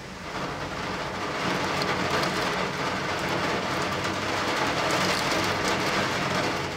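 Rain heard through a closed window, with a rushing noise that swells from about a second in and fades near the end.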